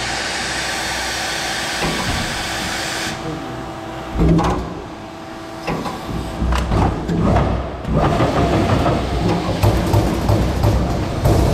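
CNC turret punch press working a stainless steel sheet: a steady machine hum, then from about four seconds in a run of sharp punching knocks and low thumps as the sheet is shifted and struck.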